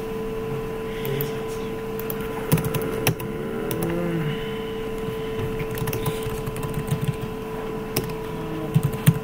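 Computer keyboard keystrokes and mouse clicks, scattered and irregular, over a steady electrical hum.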